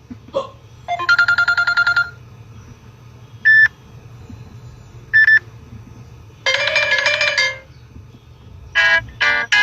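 Samsung Galaxy J7 Max ringtones playing one after another. A quick run of repeated electronic notes comes about a second in, then two short single beeps a couple of seconds apart, a brief chime of several notes at once, and the rapid notes of another tune starting near the end.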